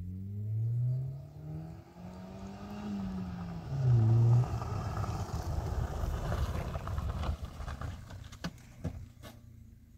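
A car engine accelerating as the car drives up a dirt track, its pitch rising in steps, with a brief loud surge about four seconds in. Then tyres crunch on the gravel and the sound fades as the car slows and stops, with a few sharp clicks near the end.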